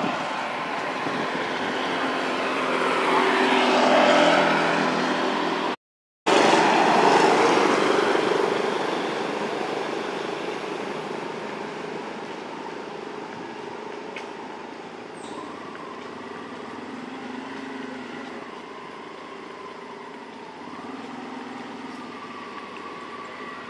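A road vehicle passing close by, its noise swelling and then fading away, with the sound cutting out completely for a moment about six seconds in. Afterwards a quieter, steady traffic hum with faint drifting engine tones.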